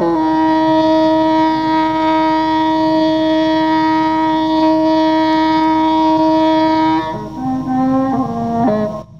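Background music: a wind instrument holds one long steady note for about seven seconds, then plays a few short stepping notes before breaking off near the end.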